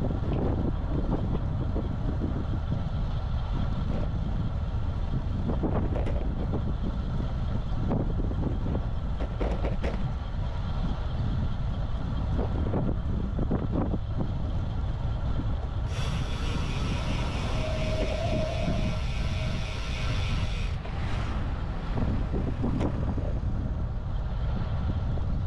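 Wind rumbling on the microphone of a GoPro Hero 12 carried on a moving road bike, with a few short knocks. Past the middle, a higher buzzing sound starts and stops abruptly, lasting about five seconds.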